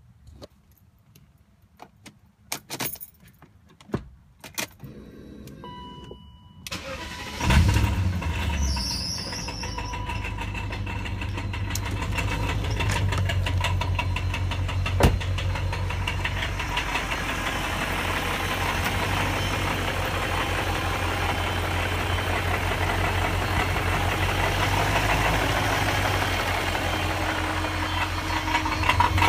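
A few clicks and a short tone, then the 1999 BMW 540i's V8 cranks and starts about seven seconds in and runs steadily with a loud rattle, which the owner hears loudest from under the car.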